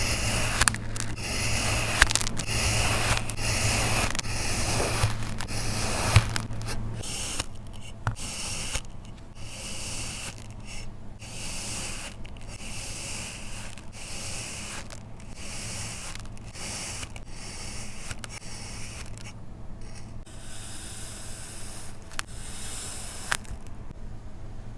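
Kinetic sand being cut and scraped: a series of gritty scraping strokes with short pauses between them. The strokes are louder for the first several seconds, with a low steady hum under them, then go on more softly.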